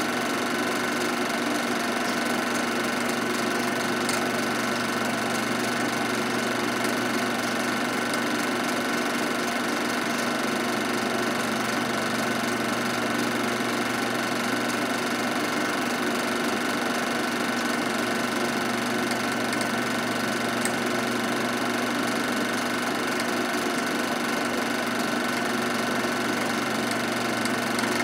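Film projector running: a steady mechanical whir with a constant hum, unchanging throughout.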